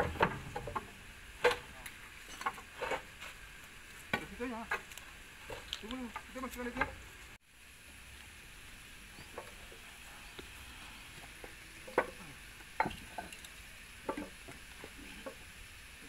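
Scattered light clinks and knocks of steel bulldozer undercarriage parts, a track roller and its shaft, being handled and shifted by hand.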